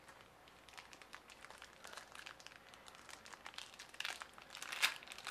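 Foil trading-card pack wrapper being crinkled and torn open by gloved hands: a run of small crackles that grows louder about four seconds in.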